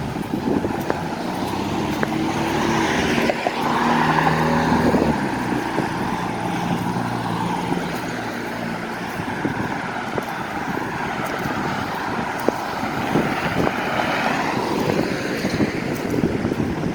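Road traffic: cars driving past on the street. One vehicle's engine hum swells and fades about two to five seconds in, and another passes near the end.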